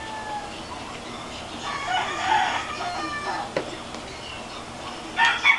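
A rooster crowing: one crow of about a second and a half near the middle, with another starting near the end. A short sharp click comes between them.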